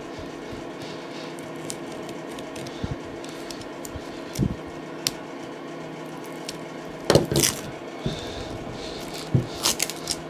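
Layers of old adhesive tape being peeled by hand off a leather-covered steering wheel rim: scattered crackling and ripping, loudest in a burst about seven seconds in and again near the end.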